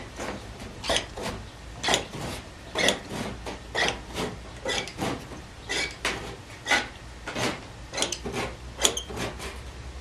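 Hand metal shears cutting thin aluminum trailer skin: a steady series of short snips, about one or two a second, as the excess is finish-trimmed flush.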